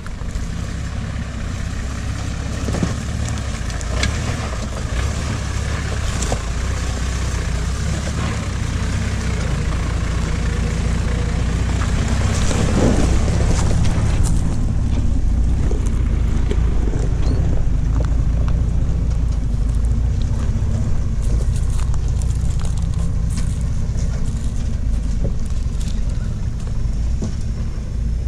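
Off-road 4WD ute's engine running at low revs as it crawls over a rutted, rocky track, with a steady low rumble that swells a little midway. Scattered knocks and crunches of tyres and underbody on rock ride over it.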